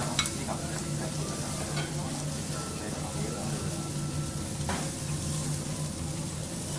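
Food sizzling on a teppanyaki griddle, a steady hiss with a low hum underneath and a couple of sharp clicks.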